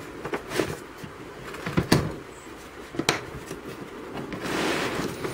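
Hard plastic tool carry case being opened and handled: several sharp plastic clacks and knocks, then a short rustle near the end.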